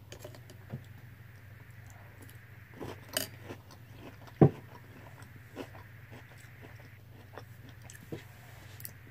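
Mouth chewing a spoonful of crunchy French toast cereal, with scattered short crunches and clicks, the sharpest about four and a half seconds in, over a steady low hum.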